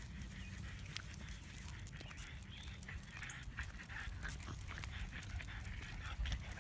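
A dog panting, with scattered light clicks.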